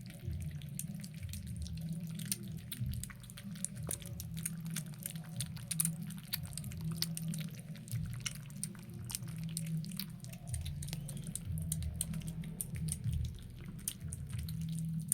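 Kittens eating, with a fast, irregular run of small wet smacking and lapping clicks over a low rumble.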